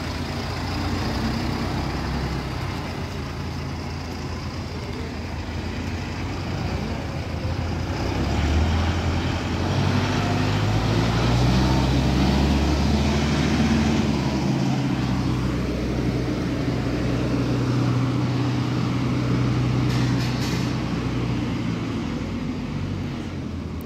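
Mahindra tractor's diesel engine running, revving up about a third of the way in as the loader-backhoe tractor pulls away and passes close, then holding a steady note and fading near the end.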